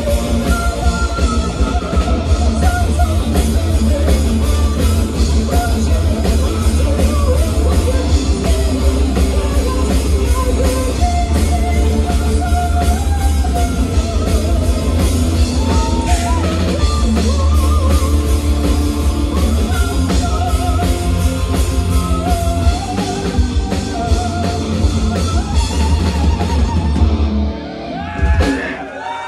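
Metal band playing live: fast drum kit, distorted electric guitars and bass under a female lead vocal. The song ends about a second and a half before the end.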